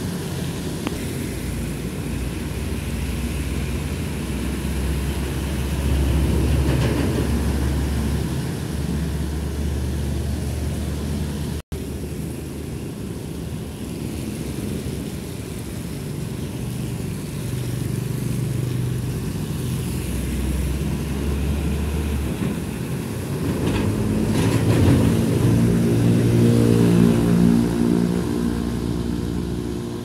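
Road traffic passing: the engines of trucks, cars and motorbikes, with one engine's steady hum growing loudest a few seconds before the end. The sound cuts out briefly for an instant partway through.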